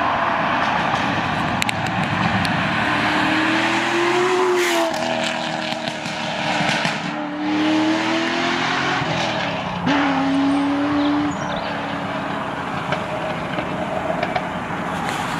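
Corvette V8 engine pulling hard through the gears, its note climbing in pitch and then dropping back at each gear change, several times over.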